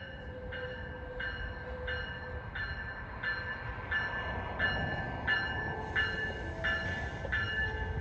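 An approaching Amtrak passenger train ringing its bell steadily, about one and a half strokes a second, over the low rumble of the train, which grows louder as it nears.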